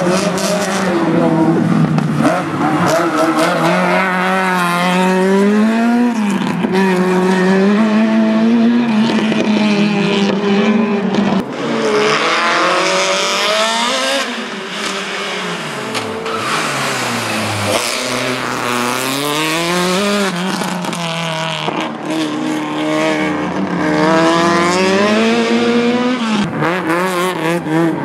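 Fiat 127 slalom car's tuned four-cylinder engine revving hard through the gears, its pitch climbing and dropping again and again with each shift and lift. It falls lowest about halfway through before pulling up again.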